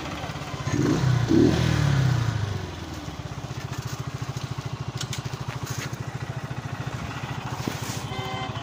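Small motorcycle engine running as the bike is ridden. It is louder for the first couple of seconds, then settles into a steady low putter of evenly spaced firing pulses.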